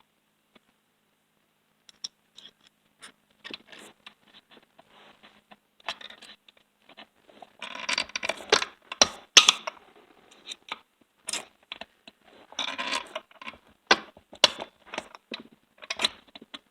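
Hand work on a Stihl MS460 chainsaw's chain brake parts: irregular clicks, taps and scraping of metal and plastic pieces being handled and fitted, sparse at first and busier and louder from about eight seconds in.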